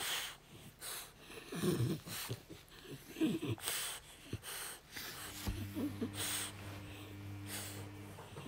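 French bulldog breathing noisily at close range, in short breaths about once a second. The noise comes from the breed's short, flat muzzle. From about five seconds in, a low steady hum runs under the breaths for about three seconds.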